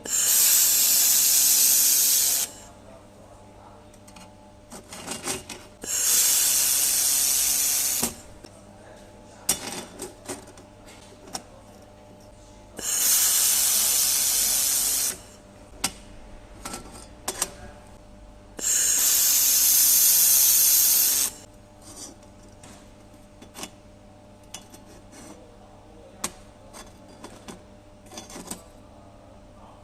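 Handheld laser welder, set to 550 W, welding thin 1.2 mm stainless steel square tube in four separate passes, each a steady hiss of about two seconds. Between the passes come light clicks and knocks over a low steady hum.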